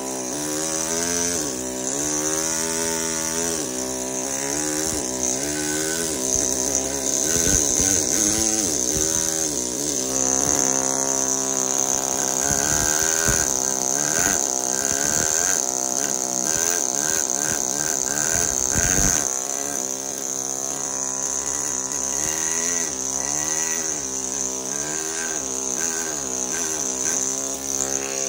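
Pneumatic carving hammer driving a steel chisel into marble: a continuous rapid buzz whose pitch keeps rising and falling, over a steady high hiss.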